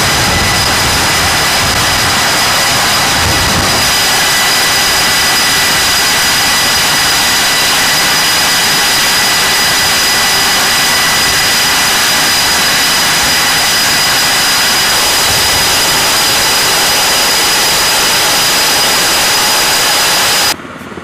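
F/A-18 jet engines running steadily: a loud, even rush of jet noise with several steady high whistling tones in it, cutting off suddenly near the end.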